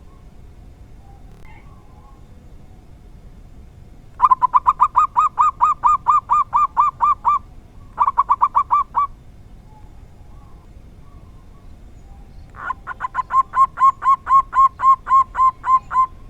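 Local zebra dove (perkutut) cooing in three bouts of rapid, evenly spaced notes, about five a second. The first and last bouts each last over three seconds, with a short burst between them. This is the song style fanciers call 'dor tak kowor kowor'.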